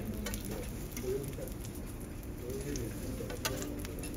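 Faint sizzling and crackling of liquid on a hot steel teppanyaki griddle, with a few light clicks of a metal cooking tool on the steel.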